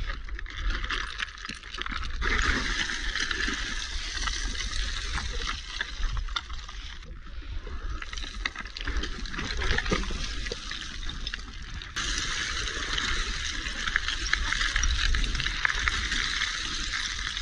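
Shoes skidding and crunching down a steep slope of loose shale scree, the flat stones clattering and scraping underfoot in a dense run of small clicks.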